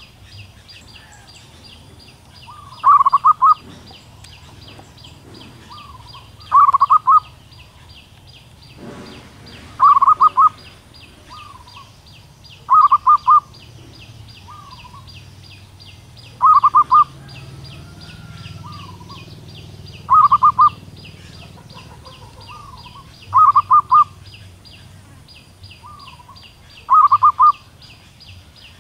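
Female zebra dove calling for a male. It gives a short burst of rapid staccato notes about every three and a half seconds, eight times in all, with a fainter single note after each burst. A fast, thin, high chirping runs steadily underneath.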